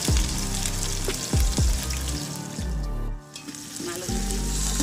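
Sliced onions sizzling as they fry in hot oil in a large aluminium pot, over background music with deep falling drum hits. Everything drops out briefly about three seconds in.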